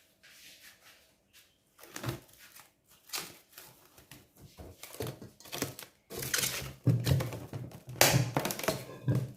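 Plastic cling film being pulled off its roll and stretched over a bowl of dough, crinkling and crackling, with a few knocks; the crinkling grows louder and busier in the second half.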